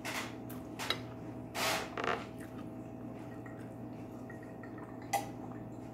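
Eating and drinking at a table: a few short rustling sounds in the first two seconds as shrimp are handled and chewed, sips from a glass of water, and one sharp click about five seconds in, over a steady low hum.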